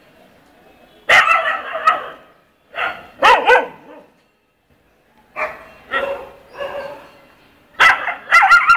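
Stray dogs barking and yelping in four loud bursts, some of the yelps bending up and down in pitch a little over three seconds in.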